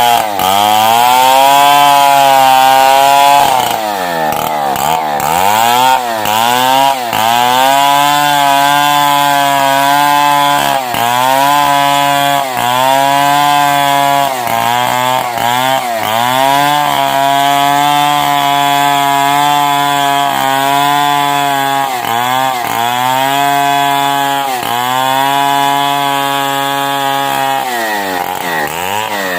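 Stihl 070 two-stroke chainsaw running at high throttle, ripping along a log. Its engine pitch dips and recovers over and over as it bogs down in the cut and picks up again.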